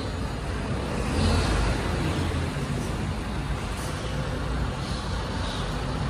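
Rear-loading garbage compactor truck's diesel engine running as the truck pulls away, growing louder about a second in.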